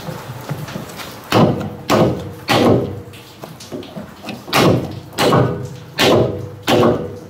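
Ford 8.8 rear differential's pinion flange being struck by hand to seat it on the pinion shaft: seven sharp thuds, each with a short metallic ring, three in quick succession and then four more after a short pause.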